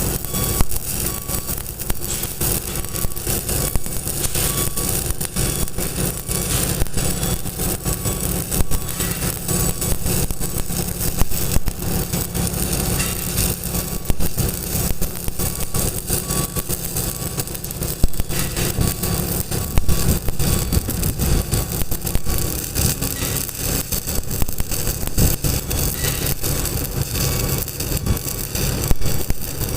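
Electric arc welding a horizontal seam on the outside of a steel tank: a steady, dense crackle from the arc over a constant low hum.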